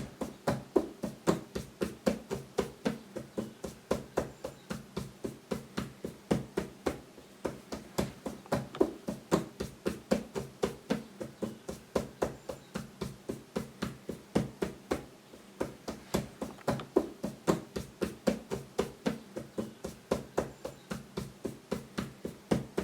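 Rapid, even tapping on a wooden skirting board as it is dusted, about three or four knocks a second.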